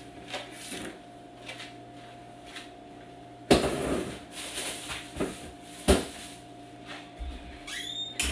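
A plastic bucket is set down in a pantry with a sharp knock and some clattering, then a single click as things on the shelves are moved. A brief squeak comes near the end, and a faint steady hum runs underneath.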